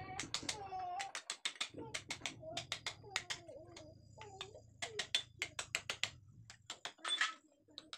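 A hammer striking sheet metal wrapped around a pipe on a wooden block, as a funnel is bent into shape: rapid, irregular metallic taps, several a second.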